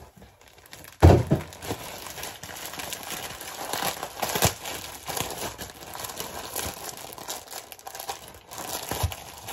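Packaging crinkling and rustling as a parcel is unwrapped by hand, with a single thump about a second in.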